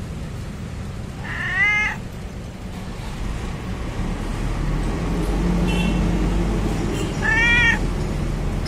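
A cat meowing during a stand-off with another cat: a drawn-out meow about a second in and another near the end, with a faint short one between. A low steady rumble sits underneath.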